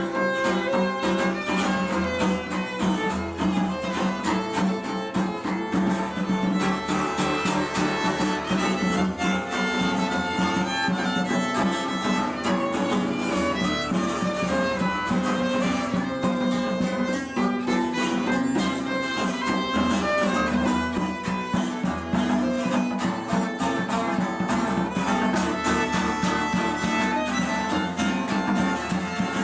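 Instrumental music from a mixed string ensemble: a violin carries the melody over plucked strings and a held low note, with a steady rhythm.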